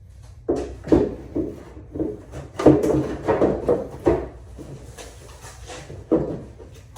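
Irregular knocks, bumps and rubbing of parts being handled and shifted, a quick run of them in the first four seconds and one more sharp knock about six seconds in.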